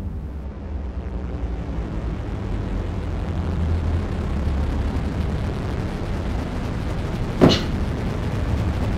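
Sci-fi spaceship sound effect: a steady low rumble that slowly swells, with one sharp crack about seven and a half seconds in.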